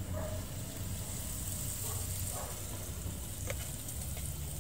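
Outdoor gas burner under large cooking pots, running with a steady low rumble and an even hiss.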